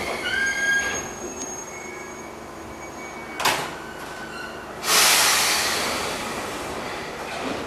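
Enshu Railway electric train No. 1002, built in 1985, squealing briefly as it comes to a stop, then letting out compressed air: a short hiss about three and a half seconds in, and a louder, longer hiss about five seconds in that fades away slowly.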